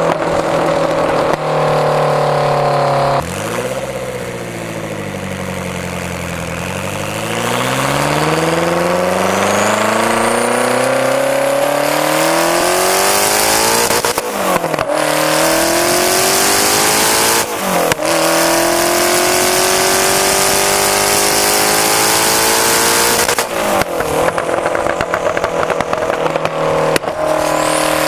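Very loud straight-piped Lotus Esprit V8 Turbo, its 3.5-litre twin-turbo V8 under hard driving: the note falls as the throttle is lifted a few seconds in, then climbs in long rising pulls through the gears, each gear change a short break in the rise, before lifting off again near the end.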